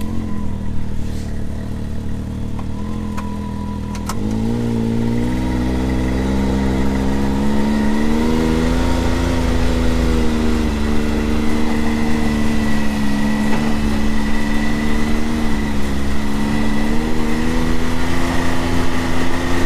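2022 Can-Am Maverick X3 DS Turbo side-by-side's turbocharged three-cylinder engine running as the machine pulls away. Its pitch steps up with a click about four seconds in, then rises and falls gently with the throttle.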